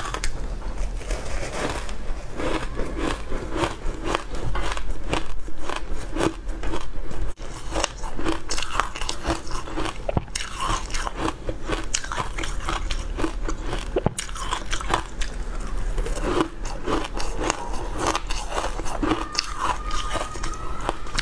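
Close-miked biting, crunching and chewing of a dry, crumbly green block eaten off chopsticks: a dense run of crisp crackles throughout.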